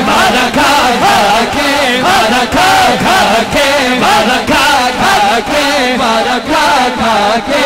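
A group of men chanting a Punjabi naat refrain together over a steady rhythmic pulse, with many voices overlapping as the crowd joins in.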